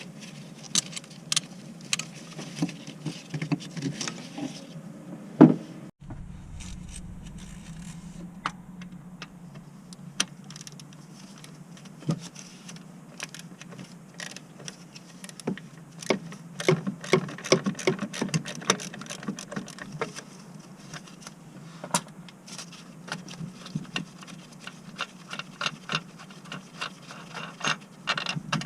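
Scattered light clinks, taps and knocks of hand tools and metal parts being handled during car repair work, over a steady low hum, with one louder knock a few seconds in.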